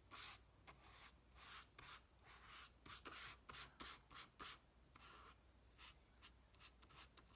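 Faint strokes of a paintbrush spreading paint over paper, a quick, irregular run of soft brushing sounds.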